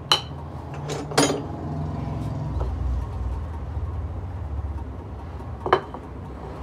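A few sharp metallic clinks as the cover plate is lifted off an L&T Case machine's hydraulic gear pump and its steel parts are handled, over a steady low hum.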